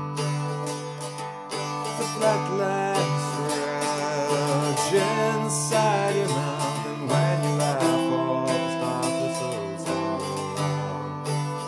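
Irish bouzouki played in a steady accompaniment, its plucked chords ringing throughout, with a man singing over it for several seconds in the middle.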